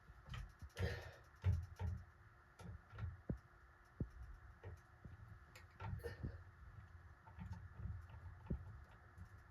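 Irregular light clicks, taps and low bumps of hands and tools handling parts during a ceiling fan pull chain switch replacement. The clicks come at uneven intervals, with the loudest cluster in the first two seconds.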